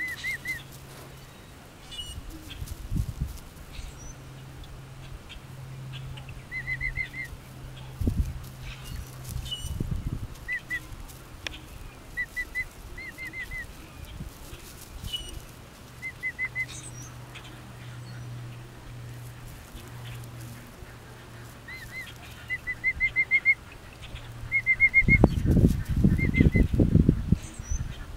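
Emu chicks peeping: short runs of three to five quick, high whistled chirps, repeated every second or two. A stretch of low rumbling thumps comes near the end and is the loudest part.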